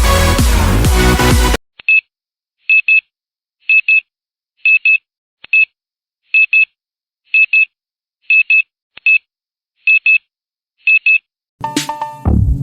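Electronic intro music cuts off and a series of high electronic beeps follows, each a quick double beep, about one pair a second, with dead silence between. Electronic music with a drum machine starts again near the end.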